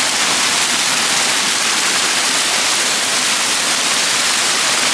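Steady, loud rush of a waterfall: close, even hiss of falling water with no break.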